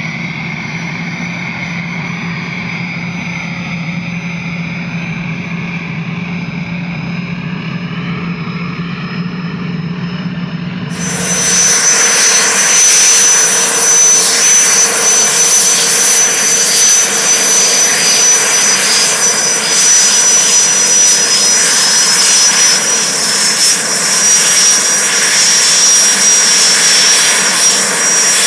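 Aérospatiale AS-330 Puma helicopter's twin turboshaft engines and rotors running on the ground: a steady high turbine whine over rotor noise. About eleven seconds in, the sound cuts suddenly to a louder, brighter recording with a shriller whine.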